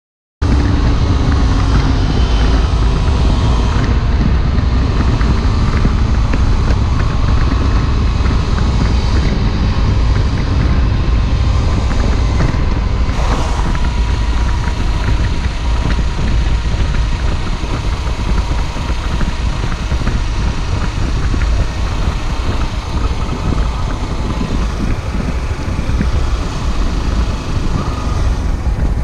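Motorcycle riding at road speed: heavy wind rush on the microphone with the 2022 Kawasaki Versys-X 300's parallel-twin engine running underneath. The sound cuts in abruptly just after the start.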